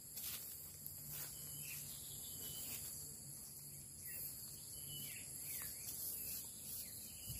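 Steady high-pitched insect chirring, with a few short bird chirps scattered through it.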